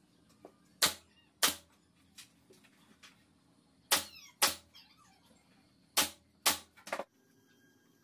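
Pneumatic nail gun firing six sharp shots in three pairs, the two shots of each pair about half a second apart, driving nails through wooden strips, with a few faint clicks in between.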